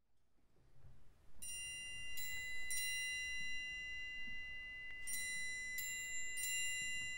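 High, bell-like notes from metal mallet percussion in a chamber orchestra, struck six times in two groups of three and left ringing over one another.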